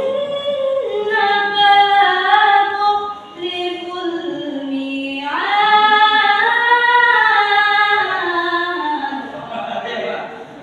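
A young female voice reciting the Quran in the melodic tilawah style, unaccompanied. It holds long, ornamented notes that glide up and down, sinks to a low held note around the middle, leaps high a little after halfway, then descends and fades near the end.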